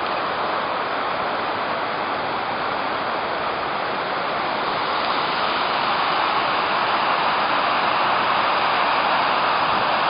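Steady rushing of the Gullfoss waterfall, a broad, even wash of falling water that grows a little louder about halfway through.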